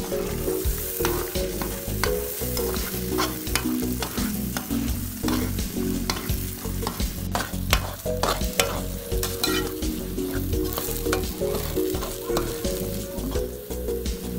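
Metal spatula stirring and scraping a thick mixture of ghee and flour against the sides and bottom of an aluminium pot, with the ghee frying in it over the heat. The strokes come quickly and irregularly, with an occasional sharper knock of the spatula on the pot.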